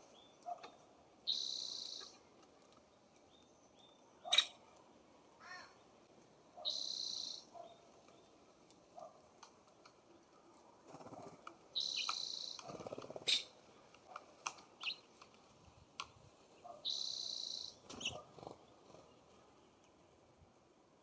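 A bird giving a short harsh, raspy call four times, about every five seconds, with scattered sharp taps and clicks between the calls.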